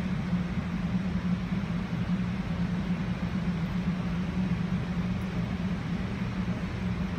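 Commercial kitchen machinery running: a steady low hum with an even rushing hiss over it.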